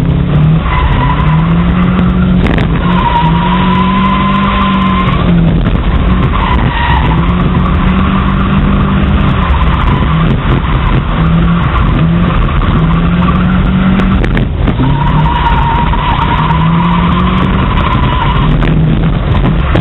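Race car lapping an oval, heard from on board: the engine revs up and down with each straight and turn, and the tires squeal in long drawn-out squeals through the corners.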